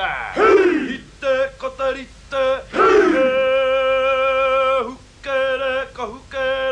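A man chanting in Māori: short syllables and long notes held on one steady pitch, broken by two sharp falling cries, about half a second in and again near three seconds in.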